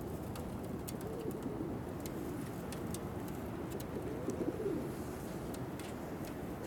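Altambasi donek pigeons cooing: soft, wavering coos that rise and fall in pitch, with the fullest coo about four seconds in.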